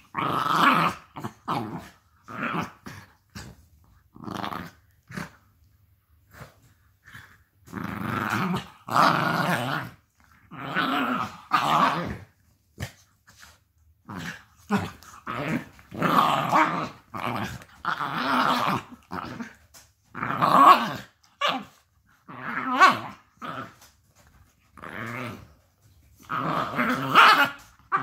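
A Jack Russell puppy and an adult dog growling as they play-fight, in repeated bursts of about a second each, with short sharp sounds between them.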